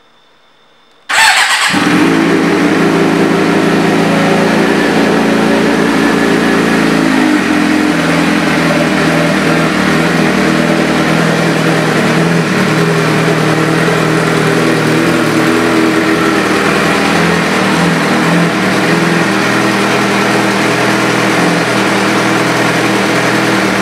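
2007 Suzuki GSX-R600's inline-four engine, fitted with a Two Brothers Racing aftermarket exhaust, comes in suddenly about a second in and then runs steadily at idle. Its note settles lower about seven seconds in.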